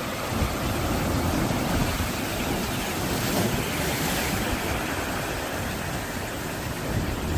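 Sea waves breaking on coastal rocks: a continuous rush of surf, with a brighter hiss of spray swelling about three to four seconds in, and wind buffeting the microphone.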